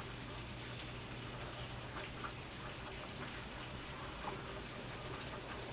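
Steady rain falling, with scattered irregular drips and taps over a low steady hum.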